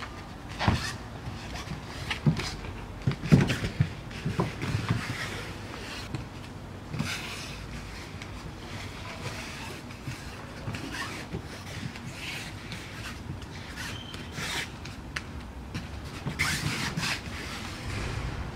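Bare feet and bodies thumping and scuffing on foam floor mats, with fabric rustling, as two dancers lift, land and shift weight against each other. The heaviest thumps come in the first few seconds, then softer scrapes and brushes.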